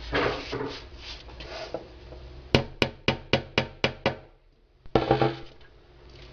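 A hammer striking wood in a quick run of about seven blows, roughly four a second, as a part is knocked into place during furniture assembly. A short clatter follows about a second later.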